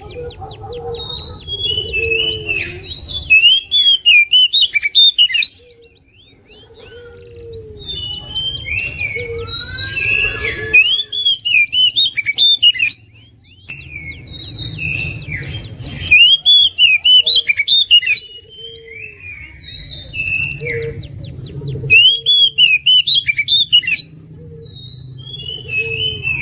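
Oriental magpie-robin (kacer) singing loudly: varied phrases of arched whistled notes, broken every few seconds by bursts of rapid repeated sharp notes, over a low steady hum and a lower repeated note.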